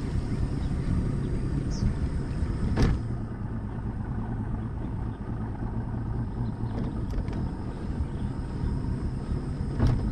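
Boat engine running under way, a steady low rumble mixed with wind and water noise, with two sharp knocks, about three seconds in and near the end.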